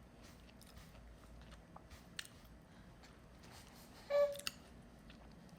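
A person chewing buttered toast, with faint scattered crunches. A brief voiced hum about four seconds in.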